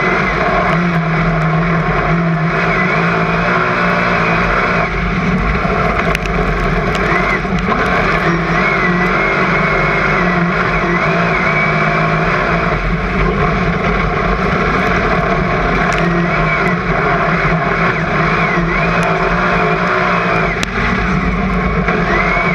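Super saloon race car's V8 engine running hard at racing speed, heard from inside the cockpit, its pitch rising and falling repeatedly with the throttle through the turns.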